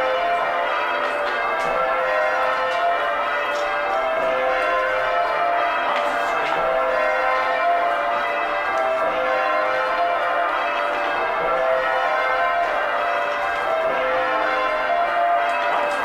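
Call changes rung on the back eight of a ring of twelve John Taylor & Co. church bells cast in 1935, the bells striking in a continuous, steady sequence of overlapping pitched strokes.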